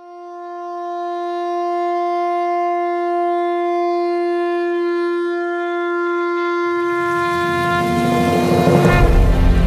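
A conch shell (shankh) blown in one long, steady note, held for about eight seconds. About seven seconds in, music with a deep low end swells in under it and takes over near the end.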